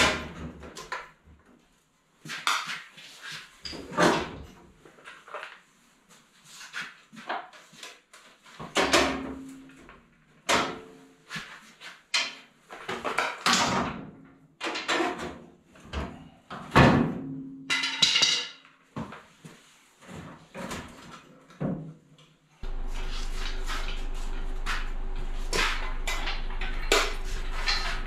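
An irregular series of sharp knocks and bangs, roughly one or two a second, some with a short ring after them. Near the end a steady hum comes on suddenly and holds.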